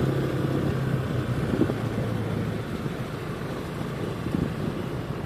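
Small motorcycle engine running at low speed while riding, with a steady engine note that fades about halfway through.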